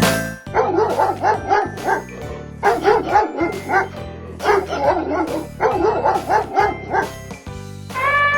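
Dog barking in four quick runs of short, yappy barks, about five barks a second.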